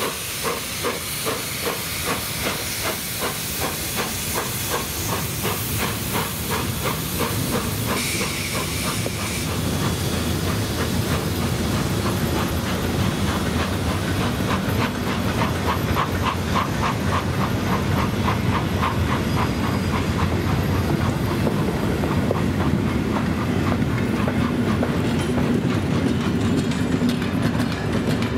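Steam locomotive starting a passenger train: steady rhythmic exhaust beats over a loud hiss of steam from its open cylinder drain cocks. The hiss is strongest in the first dozen seconds. The sound gets louder at about ten seconds in, and the coaches' wheels rumble and click over rail joints as they roll past.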